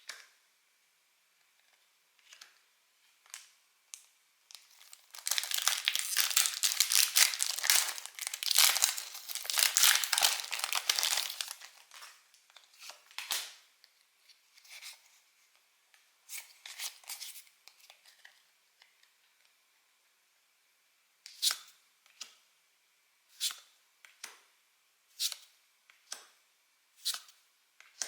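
A crinkly wrapper on a Pokémon card booster pack being torn open for about six seconds, followed by light scattered rustles. Near the end comes a steady run of short crisp snaps, about one a second.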